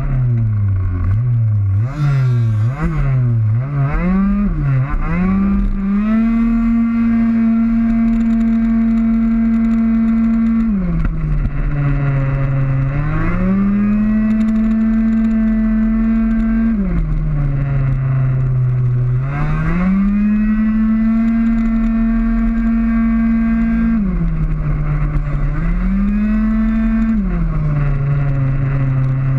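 Racing scooter's small two-stroke engine at full throttle, heard onboard. The revs rise and fall quickly a few times at first, then the note holds high and steady, dropping as the throttle is eased for corners and climbing back up, about four times.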